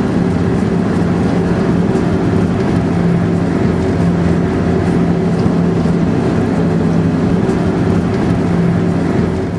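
Motor vehicle engine and road noise heard from a moving vehicle: a steady, loud drone with a low hum.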